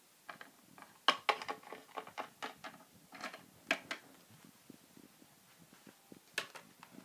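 Handling noise: irregular clicks and taps of small plastic toys and accessories being moved about on a shelf while the camera is handled, with a few louder knocks among quieter ticks.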